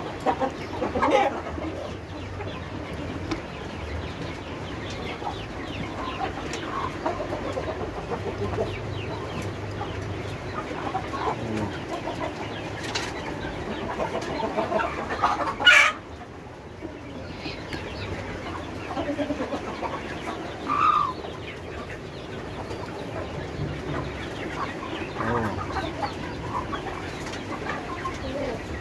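Kampung chickens clucking on and off, with one louder call about 21 seconds in. A single sharp knock about 16 seconds in is the loudest sound.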